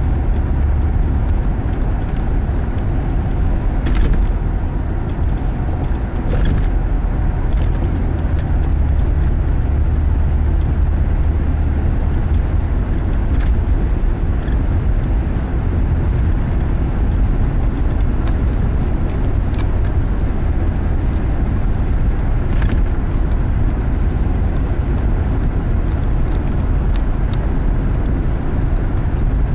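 Steady low rumble of a car driving at road speed, tyre and engine noise heard from inside the cabin, with a few faint clicks.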